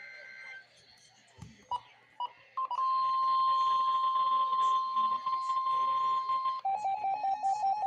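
Weather-radio emergency alert tone: two short beeps, then a long steady tone at about 1 kHz, the 1050 Hz warning alarm that comes ahead of a Special Marine Warning. About two-thirds of the way in it switches to a rapid pulsed beeping at a lower pitch, about eight beeps a second.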